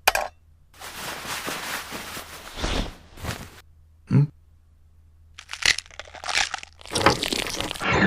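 Crunching and tearing sounds of food being cut. There is a long stretch of about two seconds, a shorter burst, a brief squeak about four seconds in, then a run of quick crunches near the end.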